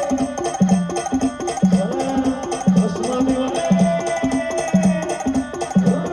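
A brass band playing a song, with a low drum hitting about once a second and lighter strokes between, under a held, sliding melody line.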